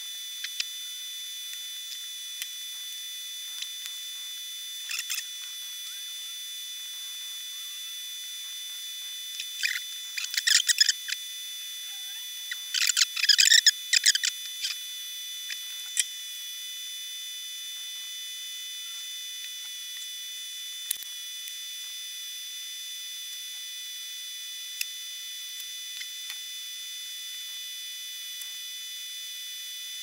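A steady high-pitched whine of several held tones, with scattered small clicks and two clusters of rapid clicking and rattling from small tools and a circuit board being handled, the louder one just before halfway.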